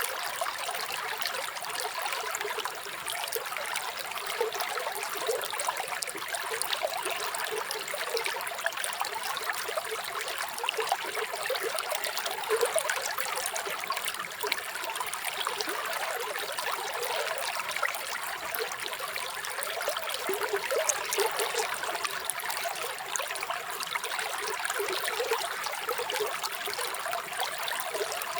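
Running water of a small stream, trickling and bubbling steadily.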